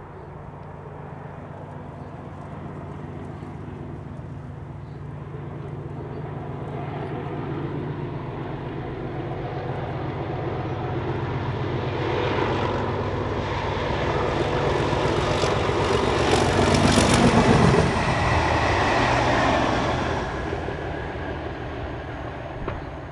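English Electric Class 37 diesel locomotives, V12 engines running, on a test train approaching and passing: a steady low engine drone builds, wheel clicks on the rails come as the train goes by about seventeen seconds in, then the pitch drops and the sound fades away.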